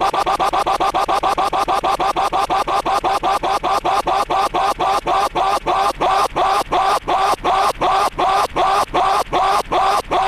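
A cartoon character's scream chopped into a stuttering loop: the same short scream fragment repeats rapidly, slowing from about ten repeats a second to about three a second.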